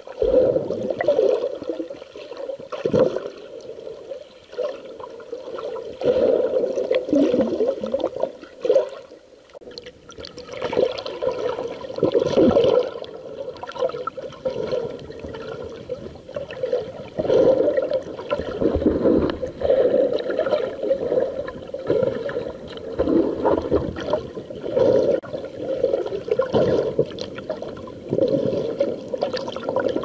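Water sloshing and gurgling around a camera held underwater by a snorkeler, in irregular surges, briefly quieter about nine seconds in.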